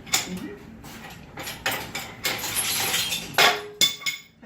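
Metal clinking and rattling: several sharp separate clinks, a longer rattle a little past the middle, and two loud strikes near the end, from engine-hoist hardware being handled.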